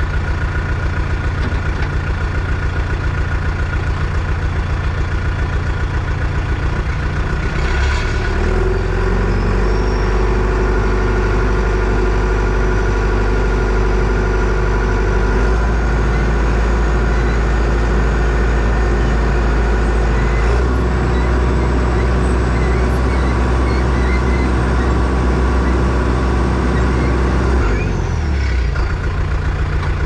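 Small crawler bulldozer's diesel engine running loud and steady under the driver's seat, its note shifting several times, with a faint high whine over it.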